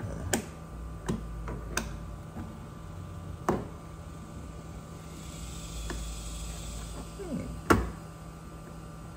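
A plastic trim removal tool prying at the puddle light in the bottom edge of a Tesla's door: a few sharp clicks and snaps of plastic on plastic as the tool works at the lens, the loudest about three-quarters of the way through.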